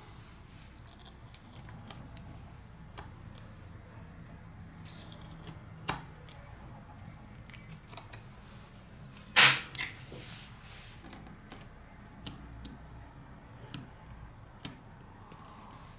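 Small handling noises of fingers pressing and smoothing adhesive tape onto a tablet's frame: scattered light ticks and taps over a faint low hum, with one sharp, much louder clack about nine seconds in.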